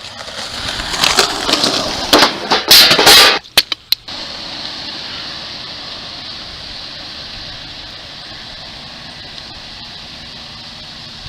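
Skateboard rolling and clattering, with a few loud sharp clacks over the first three seconds and a few quick clicks just after. From about four seconds in there is only a steady hiss.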